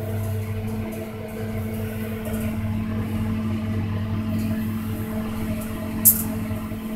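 Elevator car travelling down between floors: the steady hum and tone of its drive and cab. A short sharp click about six seconds in.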